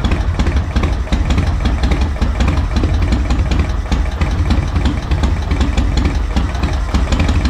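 Yamaha Road Star 1700's V-twin engine idling steadily with an uneven beat.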